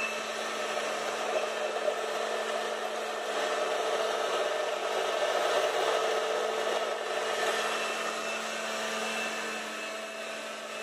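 Countertop blender motor running steadily, with a constant hum, as it whips homemade mayonnaise in its jar.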